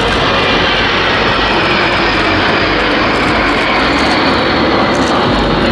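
Formation of CASA C-101 Aviojet jet trainers flying past, their turbofan engines making a steady, dense rush of jet noise.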